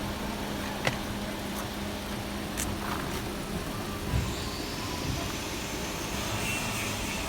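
Steady background noise with a low hum, like a vehicle or workshop running nearby, broken by two sharp clicks in the first three seconds and a thump about four seconds in.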